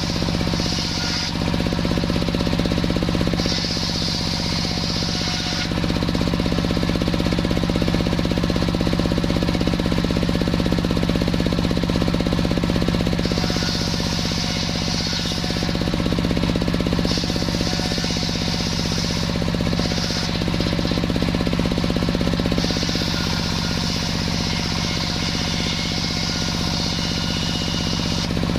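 Sawmill running steadily, with a fast-pulsing engine note and a constant hum, while a higher hiss comes and goes in stretches of two to six seconds as the saw cuts through waru wood.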